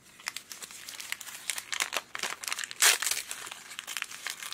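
Crinkly wrapper being crumpled and peeled open by hand: a run of quick crackles, with one loud crackle about three seconds in.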